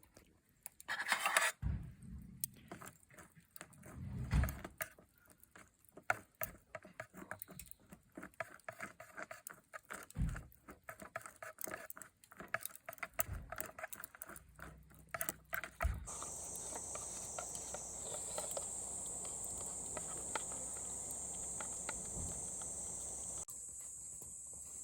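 Irregular clicking, knocking and scraping of a utensil mashing and stirring hot-water-softened potato snack sticks in their cup into potato salad. About sixteen seconds in it gives way abruptly to a steady, high-pitched buzz of insects.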